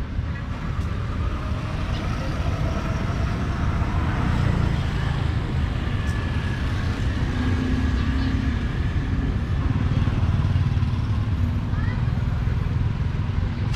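City street traffic: a steady rumble of passing motorbikes and cars, with faint voices underneath.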